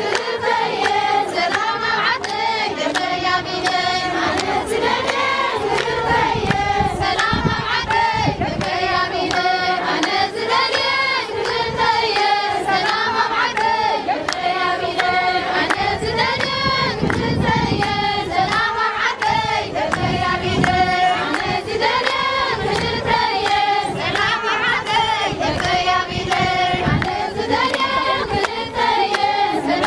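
A large group of Eritrean women singing together, with hand clapping.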